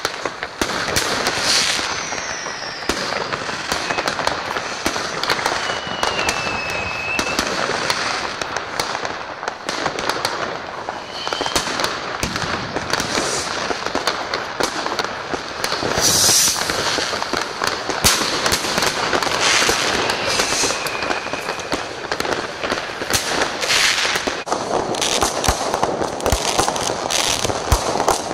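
Many fireworks going off at once: continual bangs and crackling of firecrackers and rockets. A few whistles slide in pitch, about two and six seconds in and again around twenty seconds.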